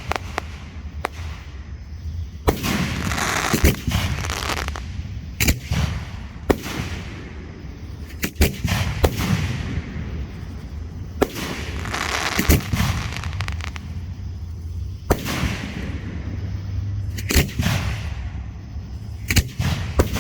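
Hand-fired fireworks going off: sharp bangs every second or two, with stretches of hissing and crackling noise about a second long between them.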